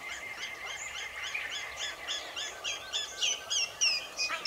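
A bird calling a long series of short, high whistled notes, about four a second, growing louder towards the end.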